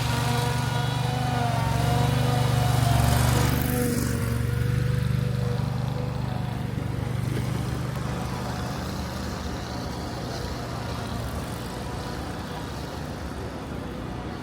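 An engine running close by, a steady low hum that is loudest about three seconds in and then slowly fades.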